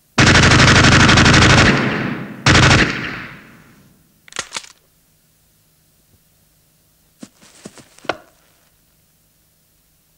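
Two bursts of automatic gunfire: a long burst of about a second and a half, then a short burst a second later, each echoing away. A few sharp clicks and knocks follow.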